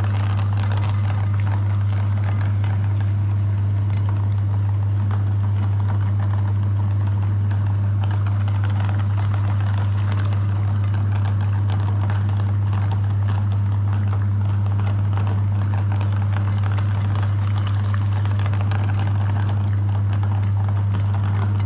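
Electric meat grinder running: a steady low motor hum under a constant crackling rattle as it grinds.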